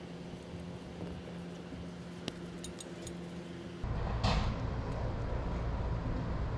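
Faint steady hum with a few light clicks; about four seconds in, a louder low rumble sets in and holds.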